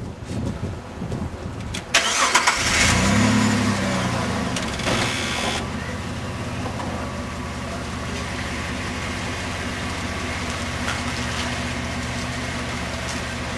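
Car engine starting: a brief crank about two seconds in, the engine catching with a short rise in revs, then settling into a steady idle.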